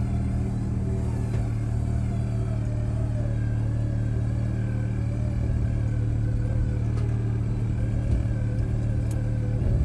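Electric winch on a Jeep Wrangler JL pulling a strapped boulder, its motor whining steadily under load over the running engine, the whine's pitch wavering slightly.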